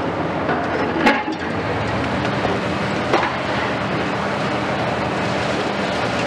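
Long-reach demolition excavators' diesel engines running steadily, with two sharp knocks of breaking concrete, one about a second in and one about three seconds in.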